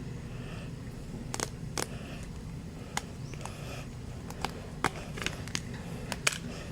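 Scattered sharp plastic clicks and taps, about eight of them at irregular intervals with the loudest near the end, as a MagSafe phone case is handled, over a steady low hum.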